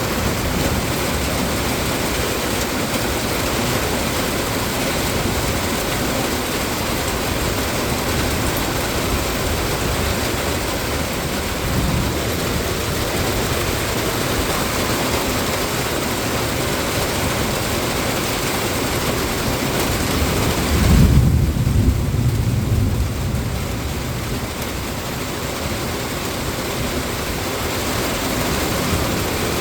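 Steady rushing hiss of heavy rain and floodwater in a flooded street, with a low rumble for a couple of seconds about two-thirds of the way through.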